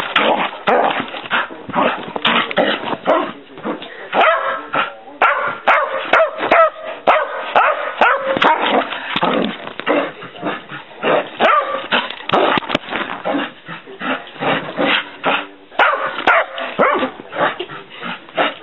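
Flat-coated retriever barking over and over in quick, loud runs with short pauses: a hyper dog in excited play.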